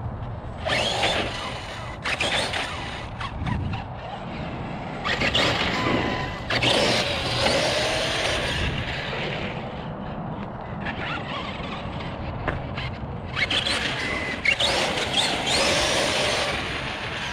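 Losi 3XL-E RC car's brushless Hobbywing 2250kv motor whining through three runs, its pitch rising and falling as it speeds up and slows, over a noisy rush of tyres on dirt.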